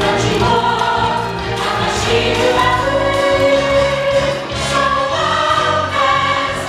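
Music with a choir singing held notes over a steady instrumental accompaniment.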